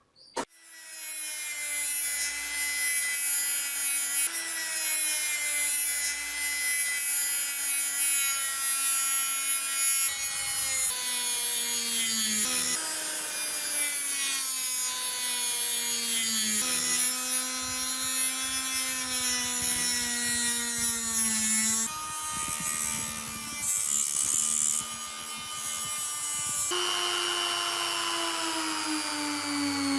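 Electric power tool motor running under load, its whine sagging and recovering in pitch with a high hiss over it. The pitch jumps abruptly several times.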